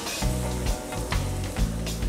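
Ground garlic sizzling in hot butter in a pan, under background music.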